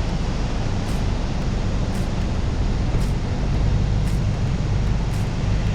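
Steady low rumble of a 4WD running, with an even road-and-wind noise over it.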